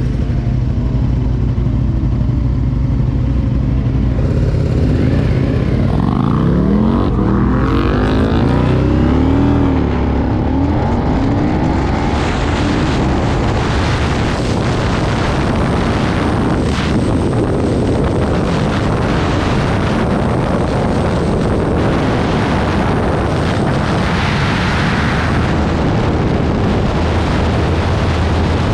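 2009 Aprilia Tuono's V-twin engine, heard from the bike: it runs at a low, steady pitch at first, then revs up and down in rising and falling sweeps for several seconds. After that a steady rush of wind and road noise at speed covers most of the engine.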